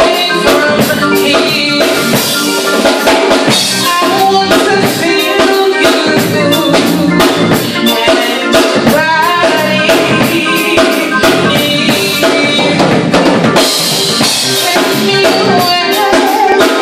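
Music with a busy, regular drum-kit beat under melodic instrumental lines.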